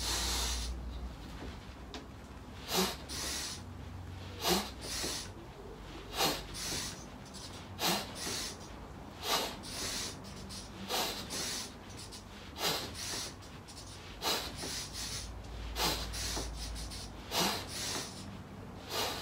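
A man breathing hard through an elevation training mask (Training Mask 2.0) while exercising: hissing breaths, mostly in-and-out pairs, coming about every second and a half in a steady, controlled rhythm.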